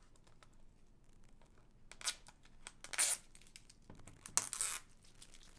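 Plastic shrink-wrap on a DVD case being picked at with the fingers and torn open: faint small clicks at first, then short tearing rasps about two and three seconds in and a longer tear near the end.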